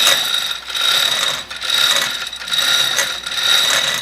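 Hand chain hoist being worked to lift or lower a heavy milling-machine head, ratcheting and rattling in even strokes a little more often than once a second, with a thin metallic ring in each stroke.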